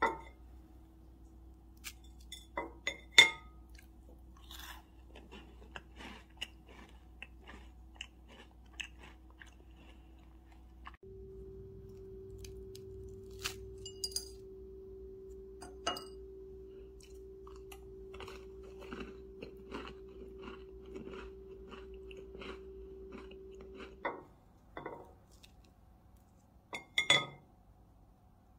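Close-up eating sounds of crisp baked sweets: a cinnamon walnut cookie, a chestnut scone and a chocolate chip cookie broken by hand, bitten and chewed. They make a run of crisp crunches and clicks, the loudest one about three seconds in.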